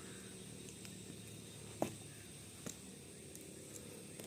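Low, steady background noise with two short sharp clicks, about two seconds in and again a second later.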